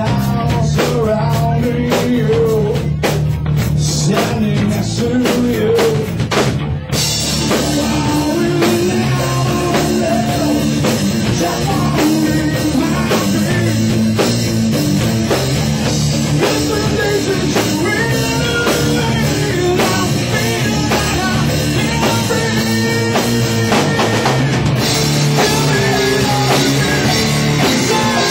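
A live rock band playing loud, with amplified electric guitars and a drum kit; the sound becomes fuller and brighter about seven seconds in.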